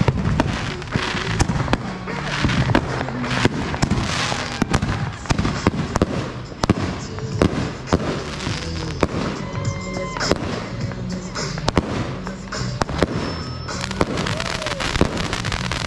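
A 25-shot consumer firework cake firing shot after shot, about two a second, each launch followed by a crackling burst overhead. Music plays underneath.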